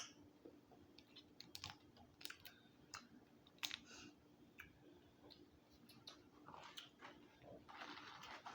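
A person eating crab close to the microphone: quiet chewing with scattered small clicks and smacks, and a soft rustling noise near the end.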